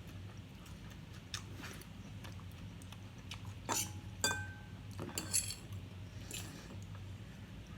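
Cutlery clinking against dishes during a meal: a handful of sharp clinks spread over several seconds, two near the middle ringing briefly. A low steady hum runs underneath.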